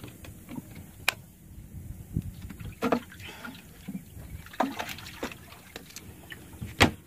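Water lapping at the hull of a small boat, broken by a few scattered sharp knocks and clicks on the boat, the loudest near the end.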